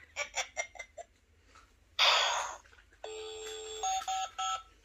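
Toy mobile phone playing its electronic sounds: a quick run of short beeps at the start, a short loud noisy burst about two seconds in, then a simple beeping melody stepping from note to note from about three seconds on.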